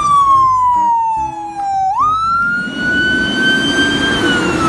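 Fire-engine siren wailing in one steady tone. It falls, jumps back up about two seconds in, climbs slowly, then starts falling again near the end. A rough rumble joins under it after the jump.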